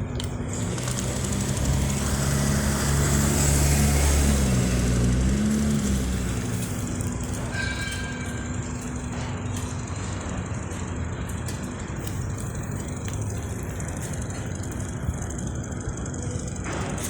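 Electric wall fan running: a steady rush of air. A louder low hum swells over the first few seconds and shifts in pitch before settling back.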